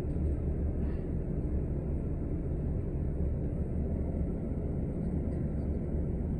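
Inside a city transit bus under way: steady low engine and road rumble in the passenger cabin.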